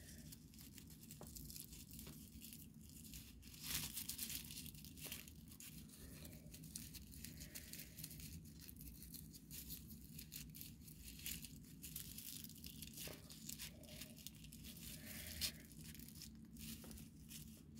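Dry raffia strands rustling and crinkling faintly as they are looped and tied into a bow by hand, a steady scatter of soft crackles with a few louder ones.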